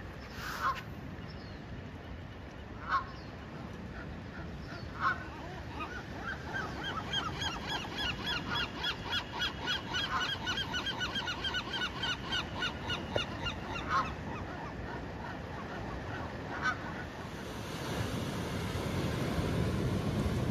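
Canada geese honking: a few single honks, then several seconds of rapid honks, then a few more single honks. A low rushing noise builds near the end.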